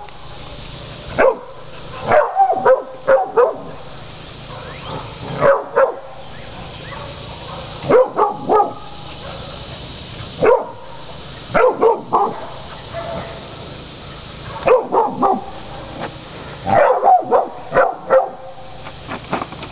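Catahoula cur barking at hogs it is holding at bay: bursts of two to five sharp barks every two or three seconds, the bay bark of a working hog dog.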